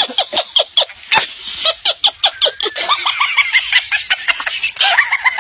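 High-pitched human laughter in quick, short repeated peals, several a second.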